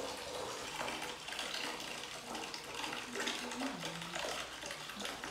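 Water running steadily from a wall tap and splashing onto a tiled bathroom floor.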